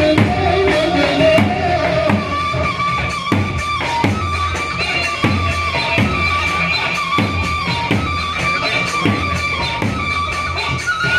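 Lebanese dabke folk music: a held, sustained melody line over a heavy drum beaten in a repeating long-short pattern, about one pair of strokes a second.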